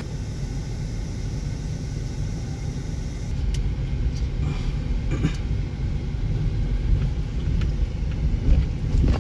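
Low, steady engine and road rumble heard inside the cabin of a small Toyota hatchback as it drives. The rumble grows a little louder about three and a half seconds in.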